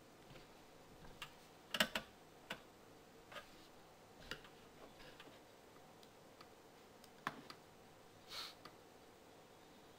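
Faint, scattered clicks over a low room hiss, a quick cluster about two seconds in the loudest, with single clicks after it and a softer burst near the end.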